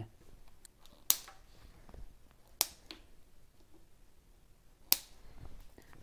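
Three sharp clicks, a second and a half to two seconds apart, from zip ties being fastened around a relay on a bicycle frame, with faint handling noise between them.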